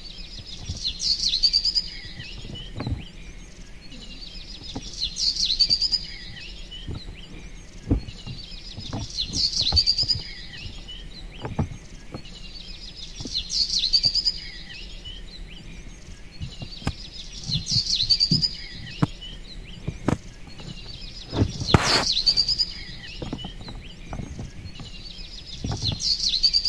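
Birds chirping in a repeating pattern, the same burst of high chirps coming back about every four seconds, over light clicks and rustles of gift wrapping being handled, with one loud crinkle about 22 seconds in.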